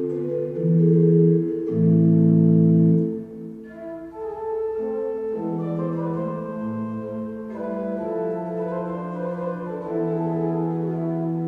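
Church pipe organ playing sustained chords. It is loudest about one to three seconds in with a full, deep chord, then drops back to a softer passage with higher moving lines.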